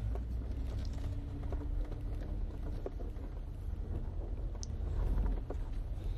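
Jeep on 40-inch mud-terrain tires crawling slowly along a rocky dirt trail, heard from inside the cab: a steady low engine rumble with scattered clicks and knocks as the tires climb over rocks and roots.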